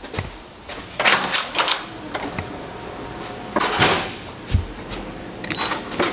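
Hotel room door and latch clicking and knocking as it is opened and shut, with a dull thump, then the click of an elevator call button with a short high tone near the end.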